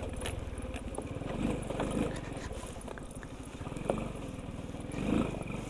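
Sanya X50 110cc moped engine running at low speed on a bumpy dirt track, with a few short knocks and rattles about one, four and five seconds in.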